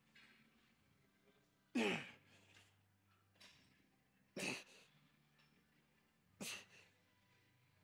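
A man's sharp, breathy exhalations with a brief grunt that falls in pitch, three of them about two seconds apart: effortful breathing on each rep of a pec deck set.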